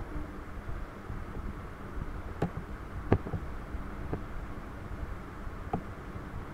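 Steady low background noise with four short, sharp clicks spread over a few seconds, the loudest about three seconds in: a computer mouse being clicked while drawing.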